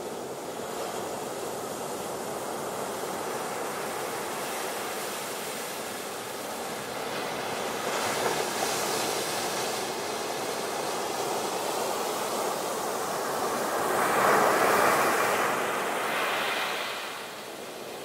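Sea surf breaking on a pebble beach: a continuous wash of waves, swelling into louder crashes about eight seconds in and, loudest, around fourteen to fifteen seconds, with a smaller one just after.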